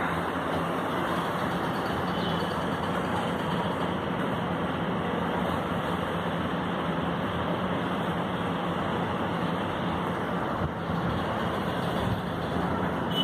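Steady road traffic noise with a low hum beneath it.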